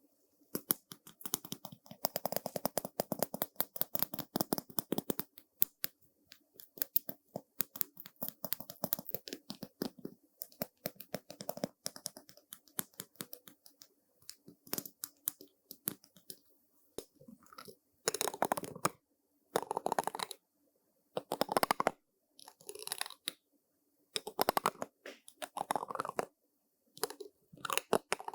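Brush bristles scratching and sweeping over a surface, a dense crackly rustle that thins out partway through. Near the end it becomes separate strokes about one every one and a half seconds.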